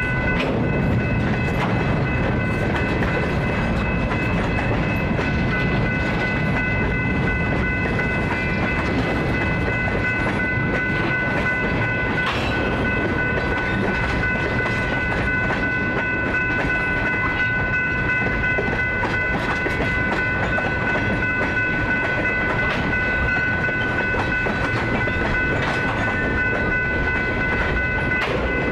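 Freight cars (boxcars, a centerbeam flatcar and tank cars) rolling steadily past at close range, their steel wheels rumbling and clicking over the rail joints. A steady high ringing tone runs over the rumble throughout.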